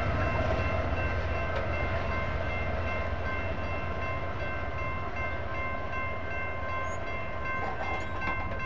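Electronic grade-crossing bell (NEG electronic bell) ringing steadily while the crossing gates rise after the train has cleared. Underneath is the low rumble of the departing double-stack intermodal train, slowly fading.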